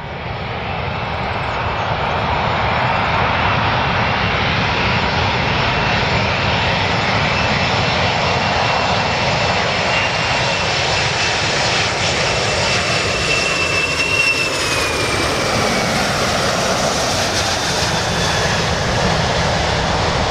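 Four-engined Boeing 747-400 jet airliner on final approach to land: a loud, steady jet roar that fades up over the first couple of seconds. About fourteen seconds in, the engines' whine slides down in pitch as the plane passes.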